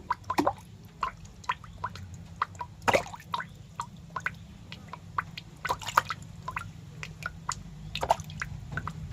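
Irregular wet clicks and drip-like pops, several a second, over a low steady hum.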